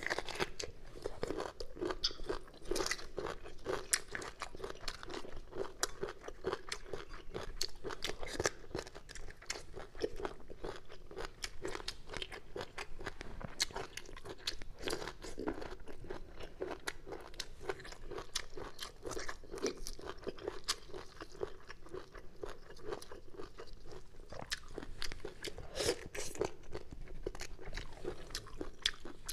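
A person chewing crisp bamboo shoot tips: a continuous run of rapid, crackly crunches.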